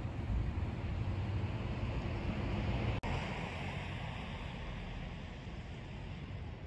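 Outdoor wind noise buffeting the microphone over a low rumble, broken by a sudden cut about three seconds in, then a steadier, gently fading noise.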